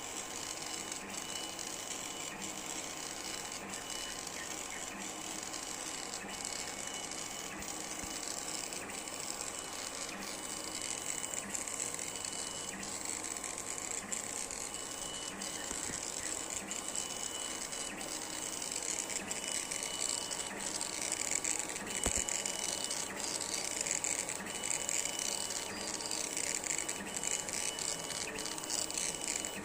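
CO2 laser cutting and engraving machine running a job, its motors moving the head with a thin whine that keeps starting and stopping, with small clicks, over a steady hiss.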